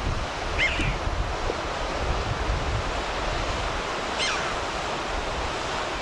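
Steady wind and surf noise with gusts rumbling on the microphone, and two short, sharp falling calls of a red-billed chough, about half a second in and about four seconds in.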